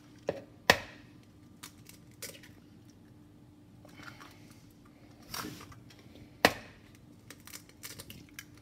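Eggs being cracked against the edge of a bowl: a few sharp knocks seconds apart, the loudest about six and a half seconds in, followed near the end by a run of small clicks and taps.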